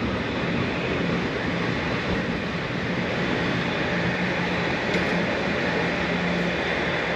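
A train passing: a steady rumble with a low hum running through it.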